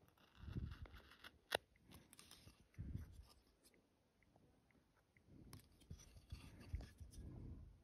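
Chip carving knife cutting into a wooden coaster: faint crunching slices as chips are cut free, in short spells with pauses between, and a sharp click about one and a half seconds in.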